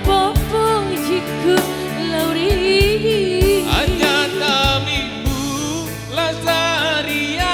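Music: a song played live, with a wavering lead melody over sustained chords and a steady drum beat.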